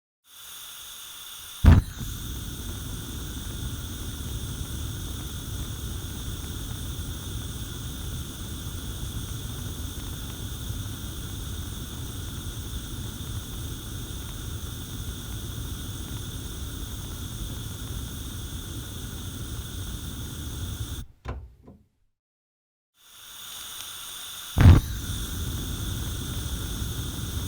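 Gas stove burner: a soft hiss of gas, then a sharp pop as it ignites about two seconds in, followed by the steady rush of the burning flame. Later it shuts off with a couple of sputters, goes silent for a moment, then the gas hiss returns and it lights again with another loud pop.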